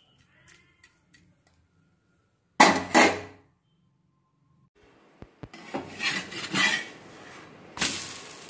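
Kitchen utensils clattering on a metal cooking pan in a few short, loud bursts: one about two and a half seconds in, several more from about five seconds. A faint steady hiss runs under the later bursts.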